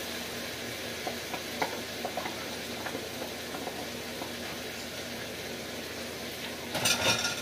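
Beaten eggs sizzling in a hot electric skillet as they are poured in, a steady hiss with small crackles and pops. A brief louder clatter comes near the end.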